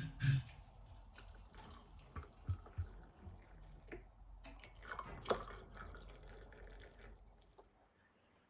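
Water dripping, with scattered small clicks and knocks. A faint steady hiss runs under them and stops near the end.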